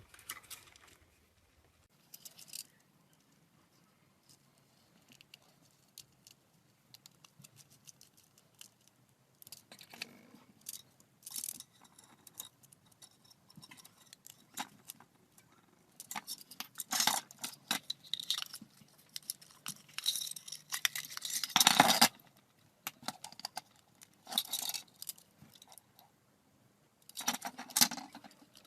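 Irregular clicks and rattles of small hard objects being handled, with a faint low hum underneath. The rattling grows dense and loudest a little past the middle, and comes again in a short burst near the end.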